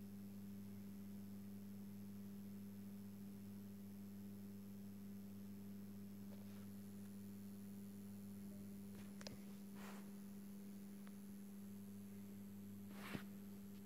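Faint, steady electrical hum of a 400 W Osram HQI-T probe-start metal halide lamp running on its ballast, a low even drone of pure tones. A few faint clicks come about two-thirds of the way in, and a sharper tick near the end.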